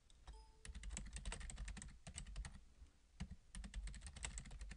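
Computer keyboard keys typed in two quick runs of clicks, with a short pause between them, as a password is entered and then retyped.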